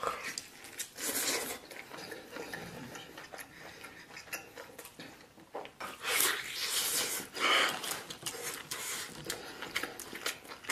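Close-miked chewing and mouth noises of someone eating tender stewed beef, with many small clicks and a few louder wet bursts about six to eight seconds in.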